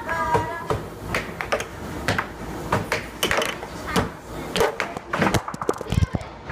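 Air hockey puck and mallets clacking in a fast rally, a sharp knock every half second or so as the puck is struck and bounces off the table's rails.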